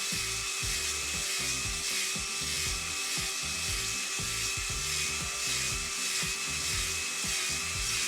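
Drill-driven three-prong cylinder hone spinning in an oiled LS V8 cylinder bore, rubbing steadily against the cast-iron wall over a constant drill whine as it is worked in and out to cut a crosshatch.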